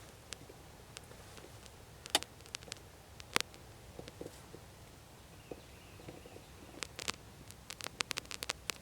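Scattered light clicks and ticks over a faint low hum, with a sharper click about two seconds in and another a little after three seconds, and a quick flurry of small clicks near the end.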